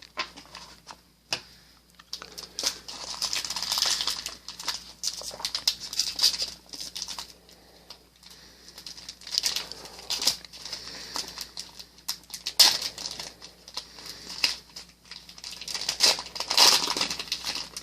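A plastic trading-card pack wrapper crinkling and being torn open, in repeated bursts, with sharp crackles.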